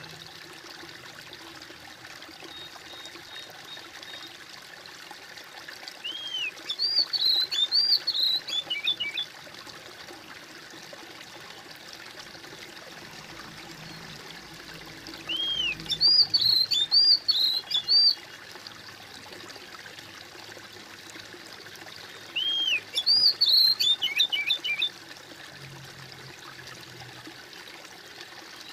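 Trickling stream water runs steadily under a songbird that sings three similar phrases of about three seconds each, roughly eight seconds apart. The bird song is the loudest sound.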